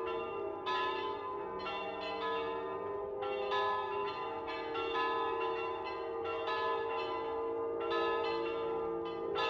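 Church bells pealing: several bells struck one after another at uneven intervals, their ringing overlapping.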